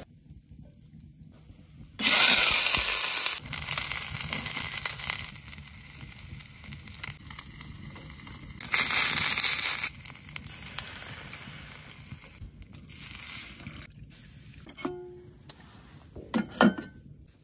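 Fish frying in hot oil in a steel pan on a wood stove. Two loud bursts of sizzling, about two seconds in and again about nine seconds in, each settle into a lower frying hiss. A few metal clinks come near the end.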